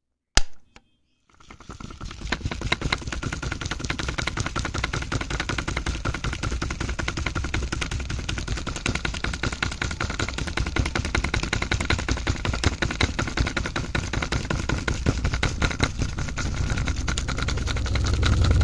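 A toggle switch clicks on, and about a second later a small electric motor starts and runs steadily, turning a homemade miniature concrete mixer's drum with a fast, even rattle that grows slightly louder near the end.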